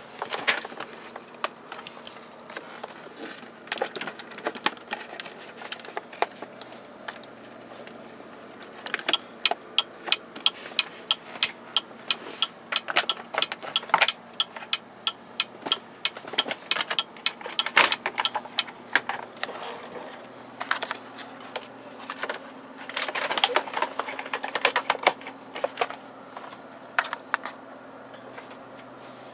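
Quick irregular clicks and taps of plastic dashboard and steering-column trim being handled and worked loose, coming in bursts, busiest through the middle.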